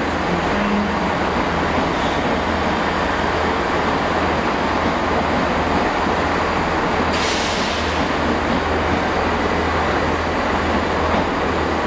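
Class 387 electric multiple unit running along the platform close by: a steady noise of wheels and traction with a low hum, and a brief hiss about seven seconds in.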